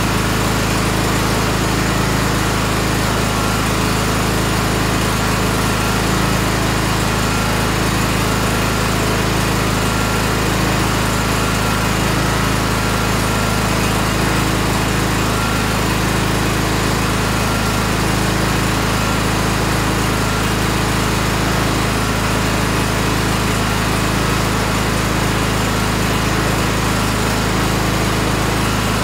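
Tractor engine running steadily at an even, unchanging speed.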